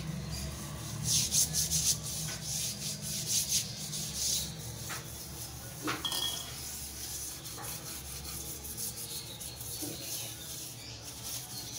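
Dish scrubber rubbing back and forth over glazed ceramic wall tiles and grout lines in quick repeated strokes, scrubbing off dried detergent paste and black grime.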